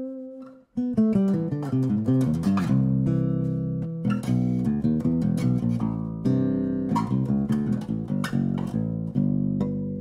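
Harley Benton HBO-850 acoustic bass guitar being played. A held note fades out and stops about half a second in. Then comes a continuous line of plucked notes, with low notes left ringing under the newer ones.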